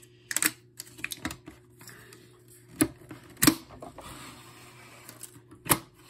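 Scattered sharp plastic clicks and knocks from a First Alert SC9120B smoke and carbon monoxide alarm being handled while its stuck battery pull tab is tugged at, with a few louder knocks in the second half over a faint steady hum.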